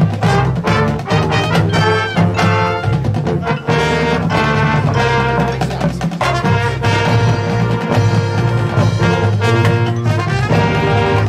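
High school marching band playing live, full brass over drum strokes.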